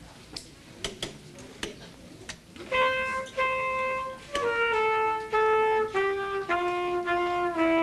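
A few scattered clicks and knocks, then about a third of the way in a solo trumpet starts a slow melody of held notes that step downward in pitch.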